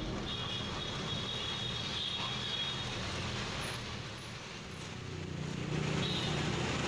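Truck engine running with road noise, heard from inside the cab, with a faint high whine during the first few seconds; the rumble grows louder from about five seconds in.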